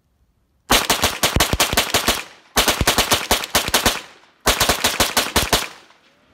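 MP5-clone rifle with a binary trigger fired as fast as it will run, a round on each pull and each release, in three rapid strings of about eight shots a second with short pauses between. Each string trails off in an echo.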